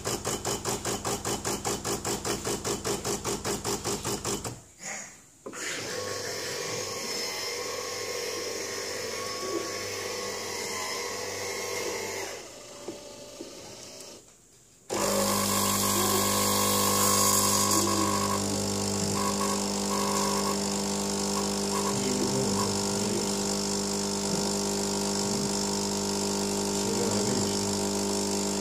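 Nescafé Gold MyCafe coffee machine working. For the first four seconds it makes a rapid, even pulsing while frothing the milk. After a brief dip comes a steadier hiss. From about halfway it gives a louder steady pump hum as it dispenses coffee onto the frothed milk.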